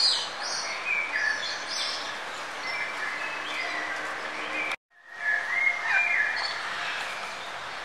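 Birds chirping and trilling over a steady background hiss. The sound cuts out abruptly for a split second just under five seconds in, then resumes.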